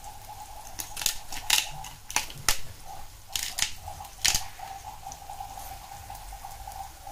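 Salt and pepper being shaken from a clear seasoning shaker over a pan of onions: a quick, irregular run of sharp clicks and rattles, about eight in all, from about a second in. A steady faint tone runs underneath.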